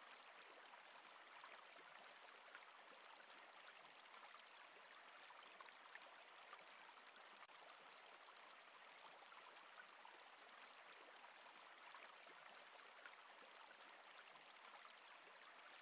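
Faint, steady sound of running water, an even hiss with small scattered trickles and drops, used as a relaxation ambience bed.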